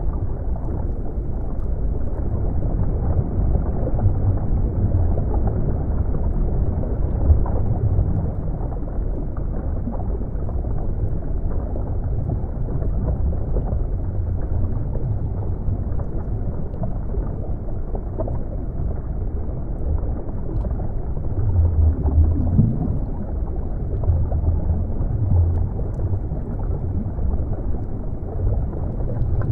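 Underwater ambience: a steady, muffled low rumble of moving water that swells and eases every few seconds, with one short low upward sweep a little past two thirds of the way through.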